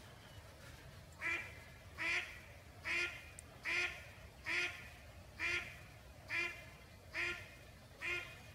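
A live decoy hen mallard on the water quacking in a steady series of nine loud calls, about one a second, starting a second in. This is the hen's calling that draws wild drakes to the decoy.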